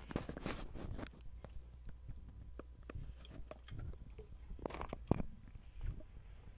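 Scattered sharp clicks and light rustling close to the microphone, bunched in the first second and again about five seconds in, over a faint steady low hum.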